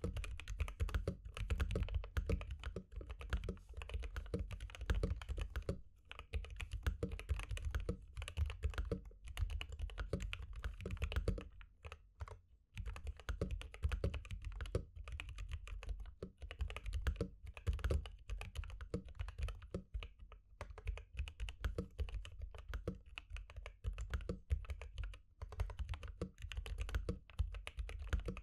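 Sound test of a Gamakay LK67 mechanical keyboard fitted with unlubed Akko CS Jelly Black linear switches and ABS GMK 8008-style keycaps, typed on quickly and continuously. The board is modded with a three-layer tape mod, foam on the PCB and cotton filling the case. There are brief pauses near 6 and 12 seconds in.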